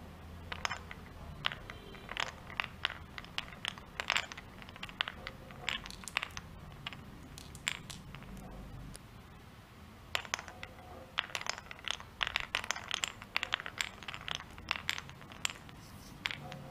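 Marble rolling down a wooden block marble run, clacking and knocking against the wooden blocks as it drops through the holes and channels: many quick, irregular clicks, thinning out for a few seconds in the middle and then coming thick again.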